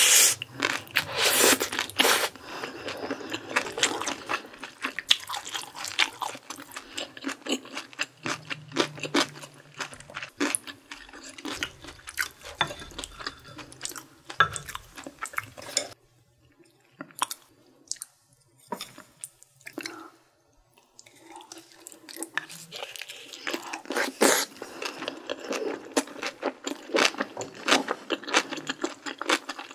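Close-miked chewing and crunching as a person eats a mouthful of bulgogi and rice, with many short irregular clicks and wet mouth sounds. It quietens for a few seconds about halfway through, then the chewing picks up again.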